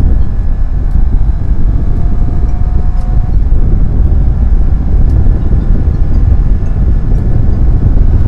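Heavy wind buffeting on the microphone of a Honda CBR250RR on the move, with the engine and its R9 Austin carbon exhaust running underneath. A faint tone rises in the first few seconds as the bike picks up speed.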